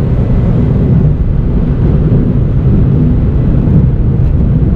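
Engine and road noise inside the cabin of a Mini John Cooper Works GP2, with its turbocharged 1.6-litre four-cylinder, driving along at a steady pace: a loud, even, low rumble.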